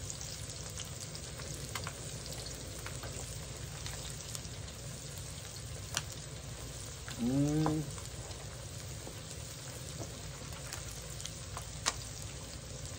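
Crappie fillets frying in shallow oil in a disc-blade wok, a steady sizzle. About seven seconds in, a short hummed voice sound rises in pitch over the frying.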